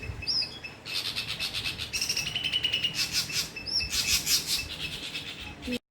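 Dull-blue flycatcher mimicking a squirrel's call: bursts of rapid, evenly repeated high chips, broken by short whistled notes. The sound cuts off abruptly near the end.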